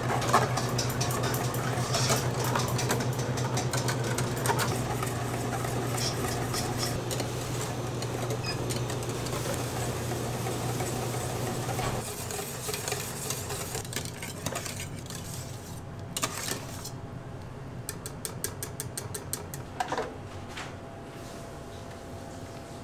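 Kitchen handling sounds of utensils and pans clinking and knocking over a steady low machine hum, which stops about halfway through. A quick run of light ticks comes near the end.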